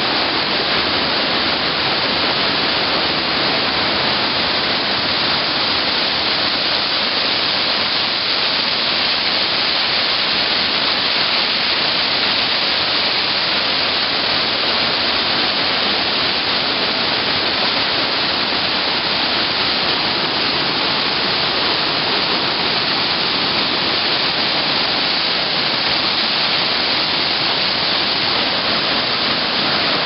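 Steady rushing of a small waterfall and the rocky mountain stream below it, water pouring and tumbling over stones without a break.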